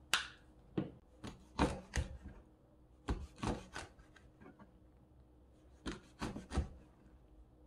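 Santoku knife slicing chili peppers into thin rings on a plastic cutting board: sharp taps of the blade on the board in small groups of three or four, with short pauses between.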